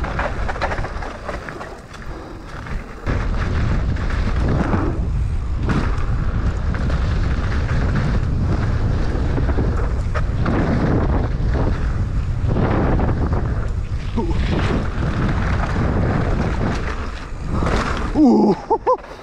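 Wind buffeting the microphone and a mountain bike's tyres running over loose dirt on a fast descent, with frequent knocks and rattles from the bike over rough ground.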